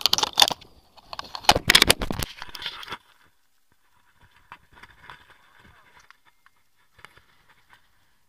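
Loud rustling and crackling handling noise on the camera's microphone, breaking off about three seconds in to faint scattered ticks.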